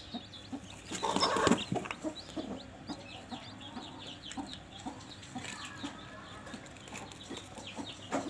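Newly hatched chicks peeping in quick, high chirps under a broody hen, with the hen clucking now and then. A louder rustling burst comes about a second in.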